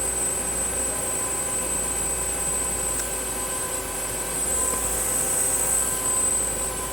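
Tsugami S206 CNC Swiss-type lathe running steadily, its spindle drives giving a whine of several steady tones over a hiss, with a thin high whistle on top. One faint tick comes about three seconds in.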